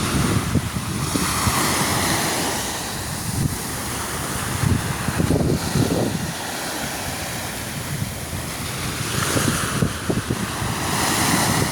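Sea waves washing onto the shore, the surf swelling and easing twice, with wind buffeting the microphone in low gusts throughout.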